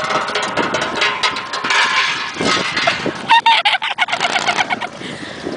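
A 1962 Chevrolet Bel Air station wagon drives past close by. About three and a third seconds in, a short pitched, honk-like tone sounds, broken by a quick run of sharp clicks.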